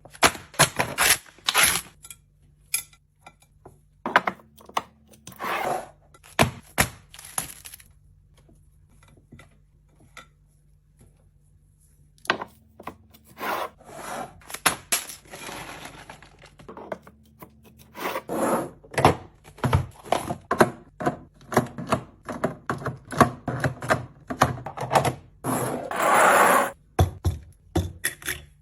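Fridge restocking handling sounds: a string of sharp clicks, taps and knocks as containers, bottles and lids are set down and handled. There is a quiet lull around a third of the way in and a longer, noisier sound near the end.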